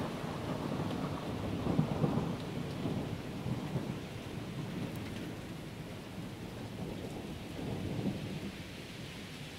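Thunder rumbling and slowly dying away, with rolls swelling again about two seconds in and near the end, over steady rainfall.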